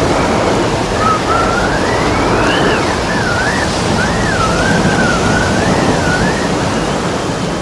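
Stormy wind and crashing waves, a steady loud rush of surf and wind. From about a second in until near the end, a thin whistle of wind wavers up and down in pitch over it.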